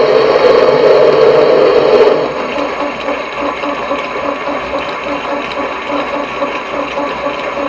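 Small manual lathe running under power while single-point cutting a thread, taking a light finishing pass of about a thousandth of an inch. It is louder for about the first two seconds, then runs on with a steady rhythmic mechanical clatter.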